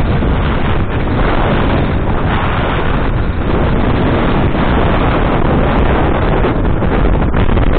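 Wind buffeting the microphone: a loud, steady rushing noise with a heavy low rumble.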